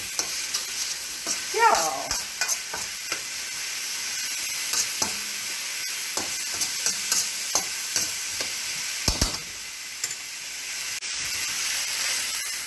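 Beef and vegetable stir fry sizzling in a hot wok while it is stirred and tossed, the utensil scraping and tapping against the pan. A brief squeak comes about two seconds in and a sharper knock about nine seconds in.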